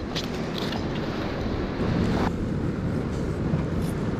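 Wind buffeting the microphone in a steady low rumble, with a rushing hiss in it that cuts off suddenly a little over two seconds in.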